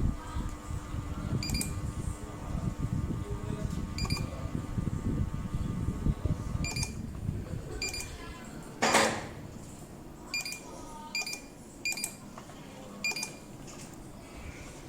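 Ceiling fan remote control receiver beeping: about eight short, high beeps at uneven intervals, each acknowledging a command sent to the fan or light. A low rumble underneath dies away about halfway through, and a brief louder noise burst comes about nine seconds in.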